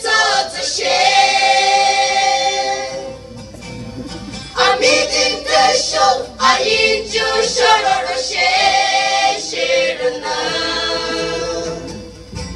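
A choir of young singers, mostly women, singing together in long held notes, with a softer stretch about three to four seconds in.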